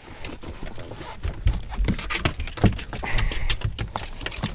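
Rapid, irregular knocks and thumps of a freshly landed striped bass thrashing against the boat.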